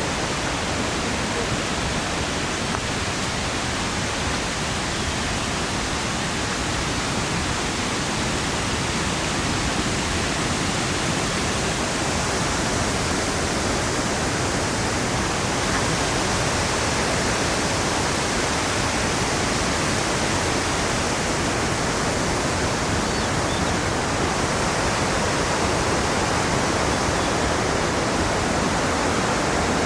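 Hagoromo Falls pouring: a steady, unbroken rush of falling water.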